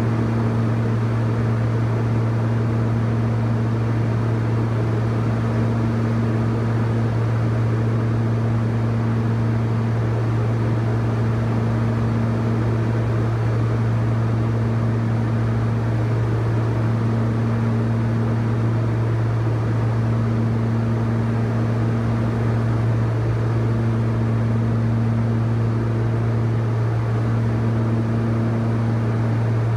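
Cockpit drone of a Beechcraft King Air 200's twin turboprop engines and propellers in steady cruise: a constant deep hum over an even rush of air. A fainter, higher hum swells and fades every couple of seconds.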